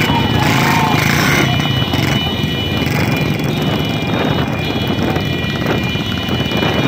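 Several motorcycles running together at riding speed in a close pack, their engines making a steady, dense drone, with men shouting over them early on.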